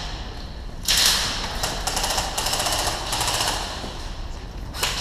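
Airsoft gun firing on full auto, a rapid rattle of shots that starts suddenly about a second in and runs for nearly three seconds.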